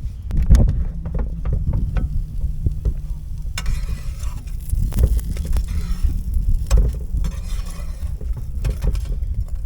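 Salmon fish cakes sizzling in a RidgeMonkey pan over a portable gas cooker, with a few scattered clicks and knocks, while wind buffets the microphone with a steady low rumble.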